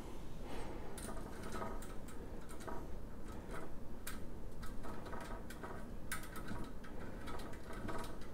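Irregular light clicks and ticks of small metal parts: dome-shaped end-cap nuts being picked up and threaded by hand onto the ends of a chrome-plated metal dish rack frame.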